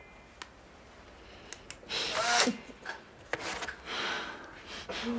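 Polaroid instant camera firing: a click, then several short motor whirrs as the print is driven out.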